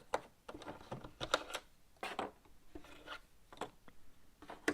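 Cardboard jigsaw puzzle pieces being slid about and flipped over on a smooth tabletop: irregular light clicks and rubbing.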